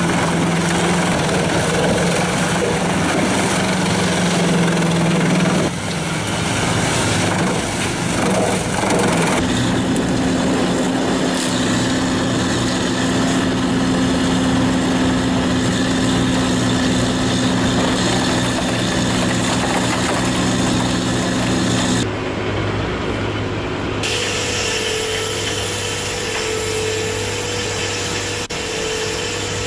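Engine-driven wood-processing machinery running steadily while wood is sawn or chipped. The machine sound changes abruptly several times.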